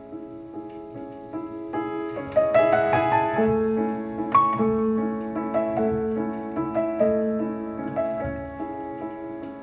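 Solo piano music, notes and chords ringing and overlapping, played back through small bass-reflex speakers fitted with Markaudio 4-inch full-range drivers.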